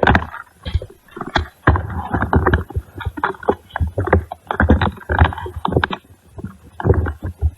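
Handling noise on a gun-mounted camera: irregular knocks and rubbing against the microphone, with muffled, indistinct voices of people talking.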